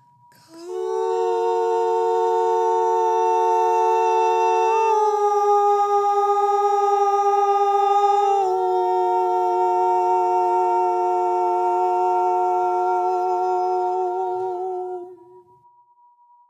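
Humming voices holding a two-note chord, changing notes twice, about 5 and 8.5 seconds in, and stopping near the end. A faint steady high pure tone sits underneath.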